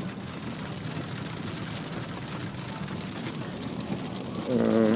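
Heavy rain falling on a car, heard from inside the cabin as a steady hiss and patter of drops. A man's voice comes in briefly near the end.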